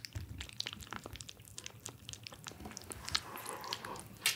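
Kittens lapping and smacking at paste-type weaning food, a quick, irregular run of small wet clicks.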